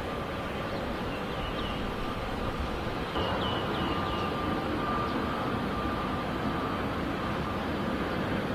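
Boeing 737 jet engines running at low power as the airliner taxis: a steady rumble with a thin, steady whine over it.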